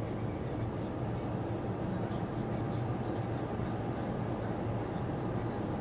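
Steady in-cabin drone of a Toyota car cruising at about 120 km/h: tyre and road noise with a constant low engine hum, heard through the dashcam microphone.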